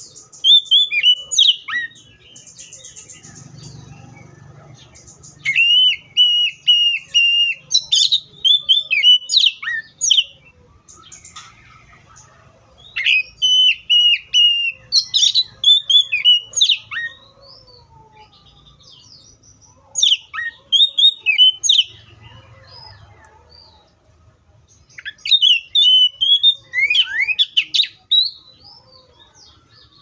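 Oriental magpie-robin singing in bursts of a few seconds separated by short pauses: clear high whistles, quick runs of repeated short notes and sharp down-slurred notes.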